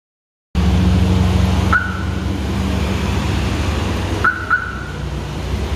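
Aftermarket K1 car alarm siren chirping in answer to the remote fob: one short chirp about two seconds in, then a quick double chirp about four and a half seconds in. These are the arm/disarm confirmation chirps of a freshly installed alarm being tested. A steady low rumble runs underneath.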